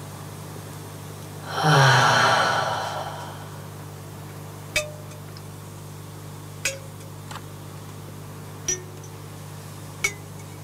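A loud, breathy sigh falling in pitch about two seconds in, followed by about five short, sparse metallic pings or clinks, over a steady low hum.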